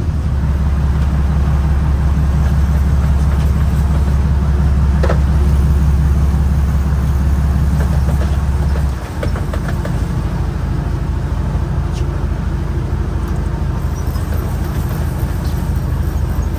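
A vehicle running with a steady low rumble that drops and changes about nine seconds in.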